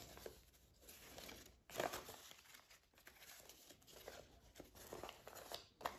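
Faint rustling and crinkling of paper banknotes being handled and counted, with a couple of brief sharper rustles.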